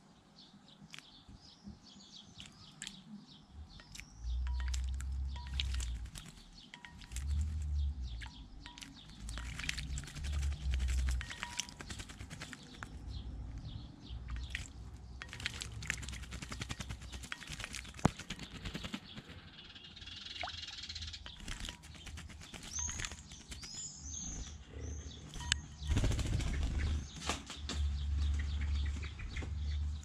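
A blackbird bathing in a shallow birdbath, splashing and fluttering its wings in the water in several bouts, with loud close wing flutters and many small water splashes. Short high bird chirps sound briefly near the end.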